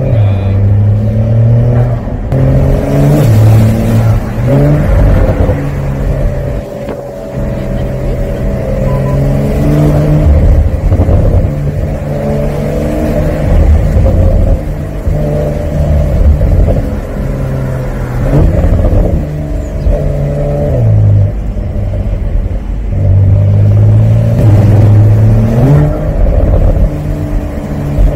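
Porsche 911 (992) Carrera 4S twin-turbo flat-six exhaust heard from the open-top cabin while driving. The engine note climbs and drops again and again as the car pulls and changes gear, over steady wind and road rumble.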